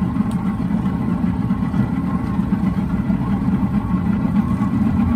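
Boston Whaler Outrage's outboard engine running steadily underway, a constant low drone with rushing noise.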